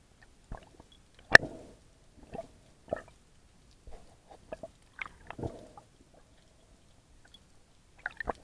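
Irregular underwater clicks and knocks from a spearfisher's speargun, reel and line being handled, picked up through the camera's waterproof housing. The sharpest knock comes about a second and a half in.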